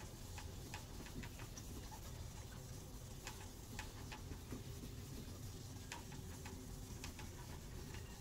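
Hand wet-sanding the fresh paint of a motorcycle fuel tank with 1500-grit wet sandpaper under a flat palm: faint rubbing with small irregular ticks over a low steady hum.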